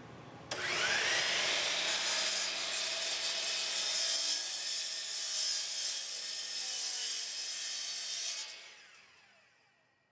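Miter saw starting with a rising whine, then its blade cutting through a wooden board for several seconds, and the blade spinning down after the cut.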